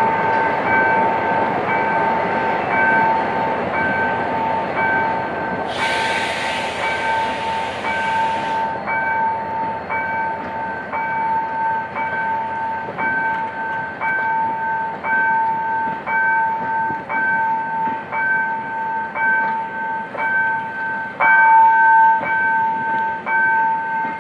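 Level-crossing warning signal sounding a two-note electronic bell about once every three-quarters of a second, over the rumble of a diesel-hauled passenger train pulling away. The rumble is strongest in the first few seconds, and a loud hiss lasts about three seconds near the middle.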